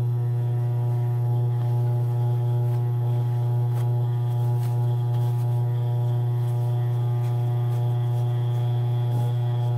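Steady low electrical hum with a stack of even overtones, unchanging throughout, with a few faint ticks and rustles of paper pattern pieces being handled.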